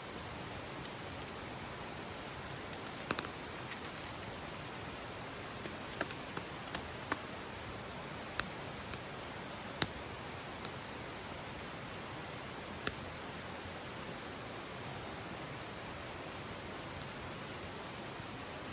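Wood campfire burning, with sharp irregular crackles and pops over a steady hiss.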